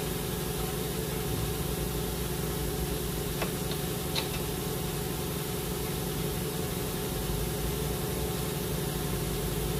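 Steady mechanical drone of running shop machinery, with a faint click about three and a half seconds in and another just after four seconds, as tools or parts touch metal under the car.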